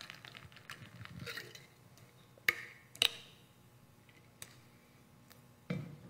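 Handling knocks and clicks from a water bottle being drunk from and set down: a few light ticks, two sharp knocks about two and a half and three seconds in, and a duller thump near the end.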